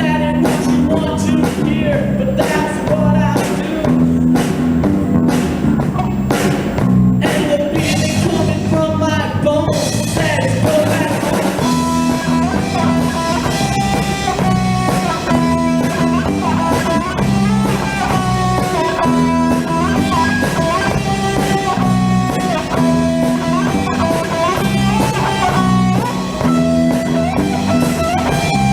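A live rock band playing a song on electric guitar, bass guitar and drum kit, with a melody line bending in pitch over a steady beat. About ten seconds in, the sound fills out with more cymbal.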